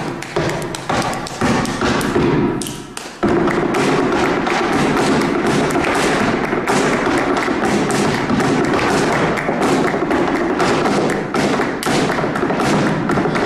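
Flamenco footwork (zapateado) on the stage floor with hand-clapping (palmas): separate stamps and claps at first, then about three seconds in a dense, fast, unbroken run of strikes.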